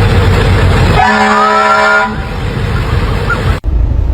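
A vehicle horn sounds for about a second, its multi-note chord rising slightly at the start, over loud steady noise. About three and a half seconds in, the noise cuts off abruptly for an instant and then resumes.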